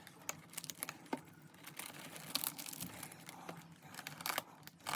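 Plastic wrapping on a computer case fan being torn and crinkled open by hand, in irregular crackles; the wrap is tough to tear.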